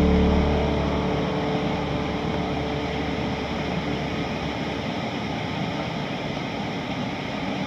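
Steady rushing of whitewater pouring through a rocky river rapid, with guitar music fading out in the first second.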